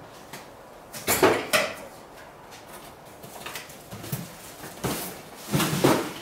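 Cardboard packaging and plastic-wrapped parts being handled: a series of short rustles and knocks, loudest about a second in and again near the end.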